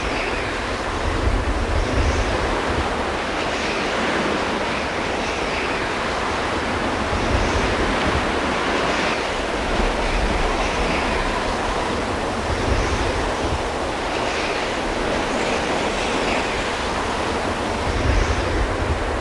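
Blizzard wind blowing steadily, with a deep rumble underneath and gusts swelling up every few seconds.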